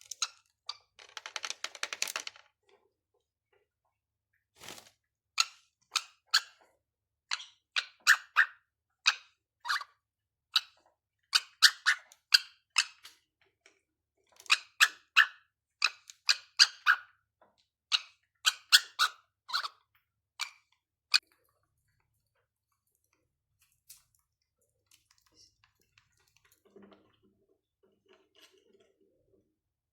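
A cockatiel making a run of short, sharp clicks and squeaks, one or two a second, that stop about two-thirds of the way through.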